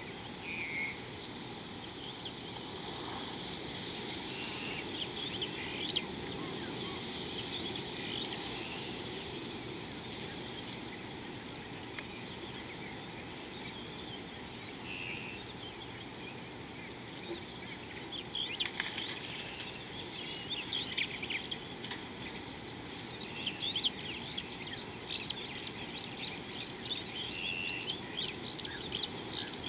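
Outdoor bush ambience: small birds chirping and calling over a steady background rush, the calls growing busier and more frequent in the second half.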